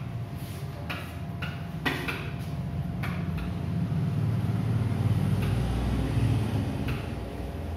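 Short scratchy strokes of a pen writing on an interactive whiteboard, several in the first three and a half seconds, over a low rumble that swells in the middle and eases off near the end.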